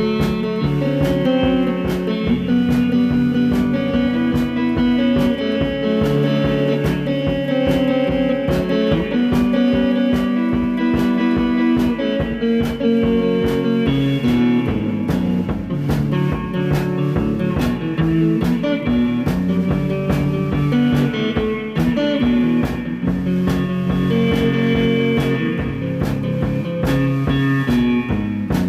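Background rock music: guitar-led, with a steady drum beat.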